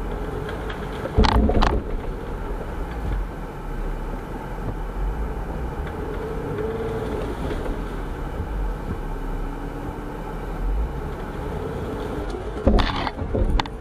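An engine running steadily, with two short loud bursts, one about a second in and one near the end.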